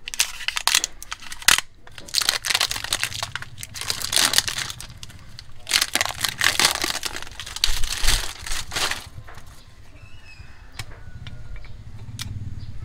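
Plastic wrapping crinkling and tearing as it is poked through and pulled off new brake pads, in bursts for the first nine seconds or so. After that, quieter clicks as the bare pads are handled.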